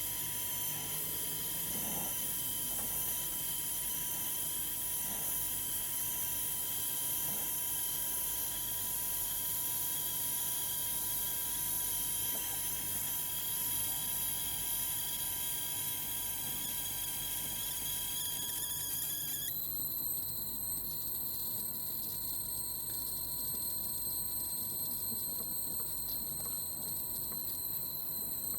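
Brazing torch flame hissing with steady high whistling tones as copper pipes are brazed; the sound shifts abruptly about two-thirds of the way in.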